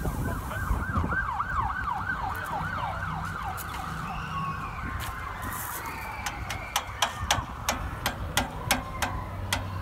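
Emergency vehicle siren in its fast yelp pattern, the pitch sweeping up and down about three times a second. In the second half come a run of sharp clicks, about three a second.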